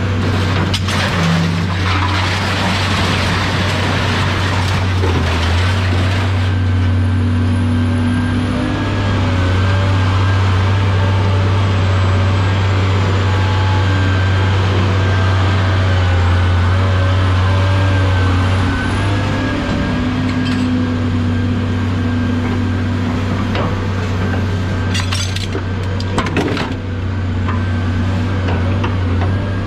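A large vehicle engine running steadily throughout, with a hiss during the first few seconds and a few sharp metallic knocks near the end.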